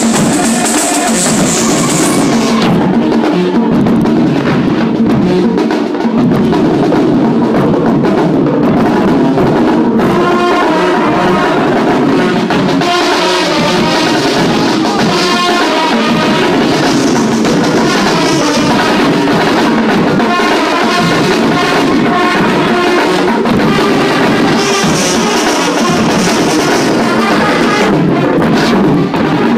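Marching band playing loudly: brass over a drum line of snare and bass drums, with crash cymbals ringing through the first couple of seconds and again near the end.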